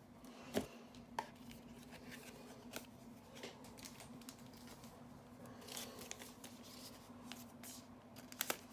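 Trading cards being handled and sorted: scattered light clicks and soft rustles of card stock, with a sharper double click near the end.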